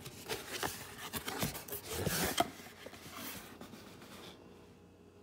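Quick rubbing and scraping strokes of something being handled, loudest about two seconds in and stopping about four seconds in.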